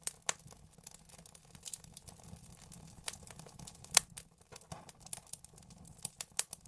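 Vinyl record surface noise in the lead-in groove: irregular crackles and sharp pops over a low steady rumble, one pop louder at about four seconds in.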